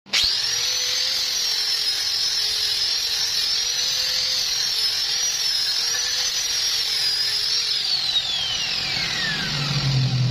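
Angle grinder switched on and running free, its motor whining at a high pitch that wavers slightly. About eight seconds in it is switched off, and the whine falls steadily as the disc winds down.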